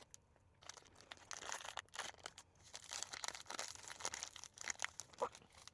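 Plastic snack wrapper crinkling and tearing open: a quiet, irregular run of crackles.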